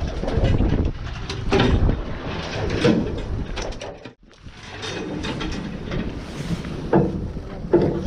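Noise on a fishing boat's deck: a low rumble with wind on the microphone and scattered knocks and clatter of handling. The sound dips almost to silence for a moment about halfway, then resumes.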